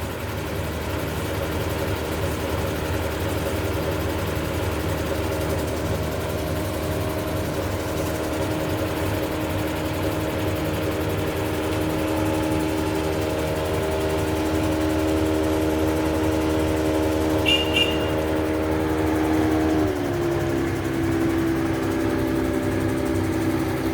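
A vehicle engine running steadily, its pitch slowly climbing and then dropping about twenty seconds in, as at a gear change. A brief high chirp is heard shortly before the drop.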